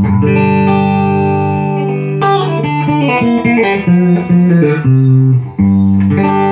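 Electric guitar played through a restored late-1970s Ampeg V4 tube amp head. A chord is struck and left to ring, a run of single notes follows about two seconds in, and another chord rings out near the end.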